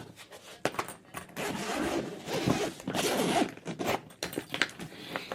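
A small suitcase's zipper being pulled open in one long run lasting a couple of seconds, with clicks and knocks of the case being handled before and after.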